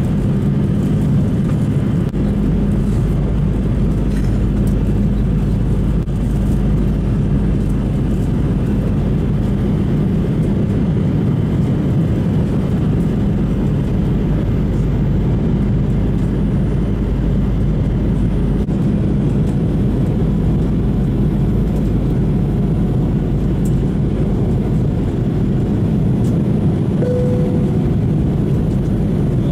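Airliner cabin noise during the climb after takeoff: the steady, even rush of jet engines and airflow, heaviest in the low end, with a constant low hum. A short tone sounds briefly near the end.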